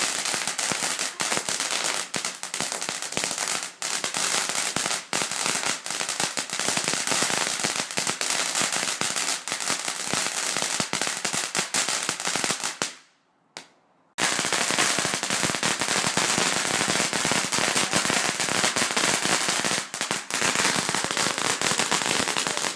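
Garden firework fountain spraying with a dense hissing crackle of rapid pops. It stops abruptly about 13 seconds in and starts again, just as dense, about a second later.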